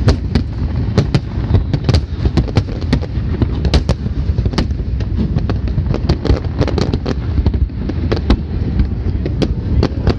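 Large fireworks display bursting overhead: a rapid, irregular string of sharp bangs and crackles over a continuous low rumble.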